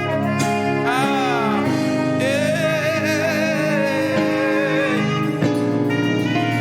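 Live gospel worship music: sustained keyboard-like chords under a lead melody line that slides in pitch about a second in, then is held and wavers with vibrato through the middle.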